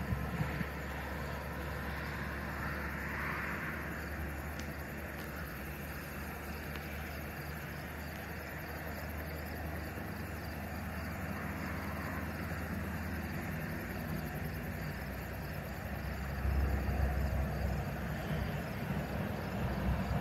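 A steady low rumble that grows louder about sixteen seconds in, with a faint, evenly pulsing high sound above it.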